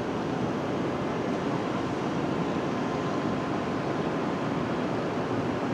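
Steady rushing background noise with a faint, steady high whine running through it, unchanging throughout.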